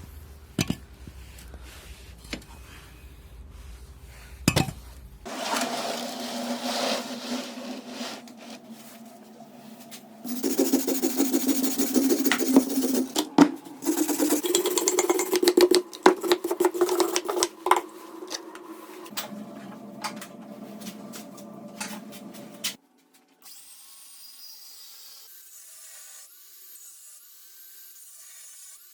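A string of short workshop clips cut together: tools working on wood, with rasping, saw-like passages and scattered knocks, loudest in the middle, and abrupt changes in sound where the clips are cut.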